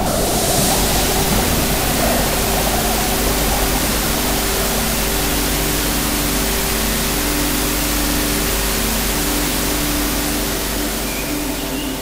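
Loud, steady wash of white-noise hiss, with a few low tones held underneath: an electronic soundtrack.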